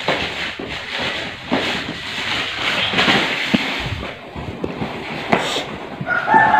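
Parcel packaging being torn open and handled: plastic wrap and packing tape rustling and ripping, with the cardboard box knocking and scraping on a tiled floor now and then.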